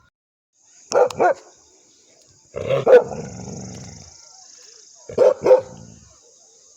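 A dog barking: two quick barks about a second in, one louder bark near three seconds, and two more quick barks just after five seconds.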